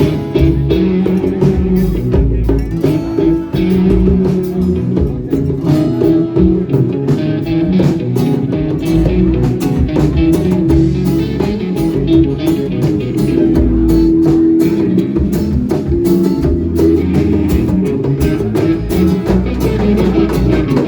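A band playing an instrumental passage: guitar over a bass line and drum kit.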